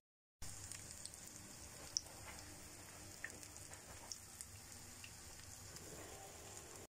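Corn fritters frying in hot oil in a small non-stick pan: a faint, steady sizzle with a few small pops.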